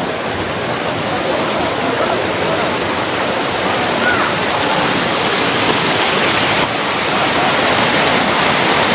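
Muddy floodwater from a flash flood rushing through a narrow village street, a loud steady rush of fast-moving water.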